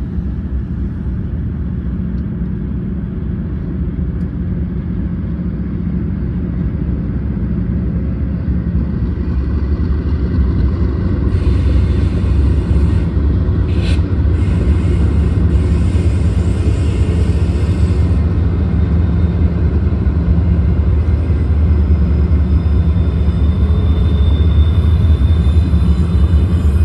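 A BNSF freight train passing close by: several diesel locomotives rumble past, then double-stack intermodal cars roll by with a steady heavy rumble that grows slightly louder. A faint thin high whine comes in near the end.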